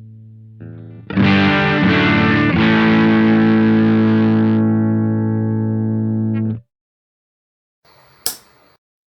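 Electric guitar played through a Velouria FX Witchcraft distortion pedal: heavily distorted chords are struck about a second in and left ringing, then muted abruptly. After a short gap there is a sharp click.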